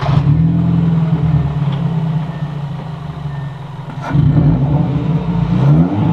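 Hyundai Veloster's non-turbo GDI four-cylinder, running with its muffler removed and a cone air filter on the intake. It catches and runs at a fast idle, is revved about four seconds in, and the revs fall again near the end.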